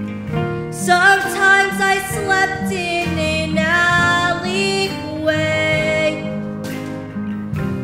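A child sings a slow, sustained melody solo over instrumental accompaniment.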